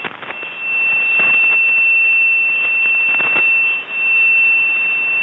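Radio receiver static: an even hiss cut off above the narrow voice bandwidth, with a steady high-pitched whistle over it, dipping briefly about four seconds in.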